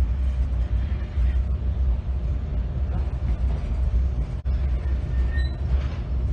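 SNCF TER train running slowly out of the station, heard from inside the carriage as a steady low rumble. A short high-pitched squeal comes about five seconds in.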